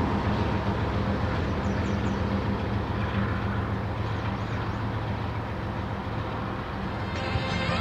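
Diesel locomotive at the rear of a loaded coal train running with a steady low drone over the rolling noise of the cars, fading slowly as the train moves away. Music comes in near the end.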